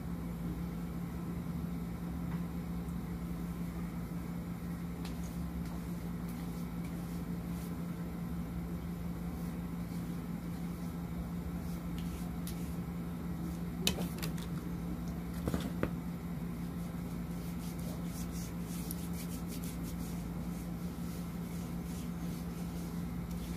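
A steady low mechanical hum with room noise throughout. There are a couple of light taps about fourteen and sixteen seconds in, and faint small ticks and rustles later on.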